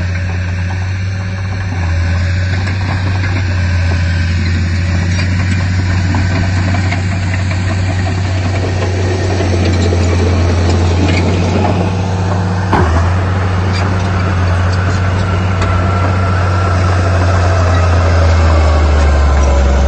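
Heavy diesel construction-machine engine running steadily with a deep, low drone, and one sharp knock about thirteen seconds in.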